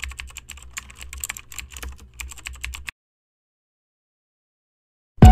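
Typing sound effect: rapid clicking of keyboard keys, cutting off abruptly about three seconds in, followed by silence. Loud intro music starts right at the end.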